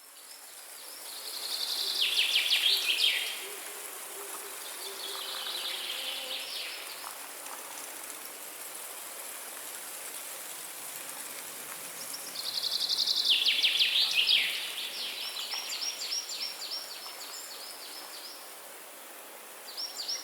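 Rainforest ambience: a steady airy hiss of wind with rapid high trilling calls that come and go, loudest a couple of seconds in and again around the middle.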